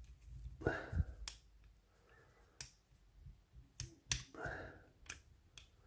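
Scattered small clicks and taps of a steel laminated padlock's parts being handled as it is taken apart, about half a dozen separate sharp clicks.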